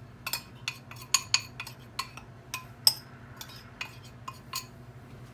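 A dozen or so irregular sharp clinks and taps of a small bowl and spatula knocking against a stainless steel mixing bowl as dry ingredients are emptied into it. They stop about four and a half seconds in.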